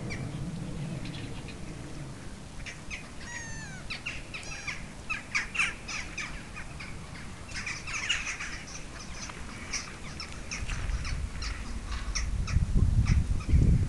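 A flock of black-headed gulls calling: many short overlapping calls, some wavering in pitch, densest about eight seconds in. A low rumble builds over the last few seconds and becomes the loudest sound.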